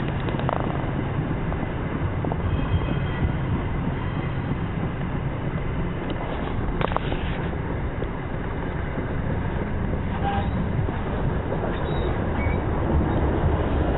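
Passenger train running along the line, heard from an open coach window: a steady rumble of wheels on rail with rushing air, broken by a few sharp knocks from the wheels over rail joints and pointwork.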